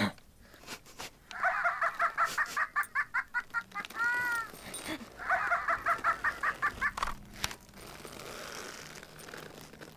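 A phone ringtone of comic clucking, chicken-like notes: a fast run of high clucks, about eight a second, then a short rising-and-falling whoop, then the clucking run again.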